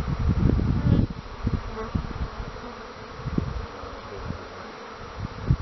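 Honeybees buzzing around an open hive, with low rumbles on the microphone that are heaviest in the first second.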